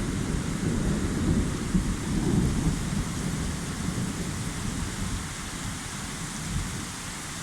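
A long roll of thunder, rumbling in swells and fading away near the end, over steady heavy rain.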